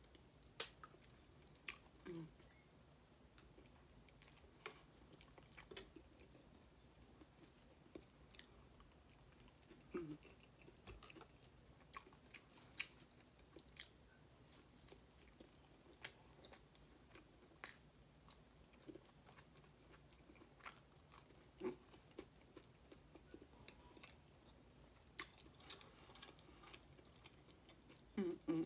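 A person chewing food close to the microphone: faint, scattered wet mouth clicks and smacks, a few louder than the rest, over a quiet room.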